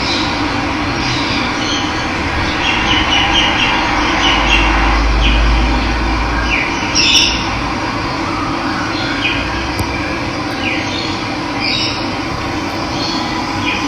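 Steady rush of running water with birds chirping over it in short calls every second or so. The loudest call comes about halfway through, and a low rumble swells for a couple of seconds just before it.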